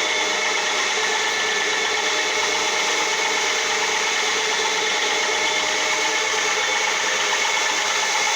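Rotary floor polisher running steadily with a brush scrubbing a carpet: a constant motor hum and whine over an even scrubbing hiss.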